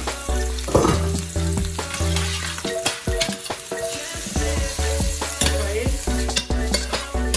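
Chopped onions sizzling in hot oil in a stainless-steel frying pan, stirred with a spatula that scrapes and taps the pan. Background music with a steady bass line plays underneath.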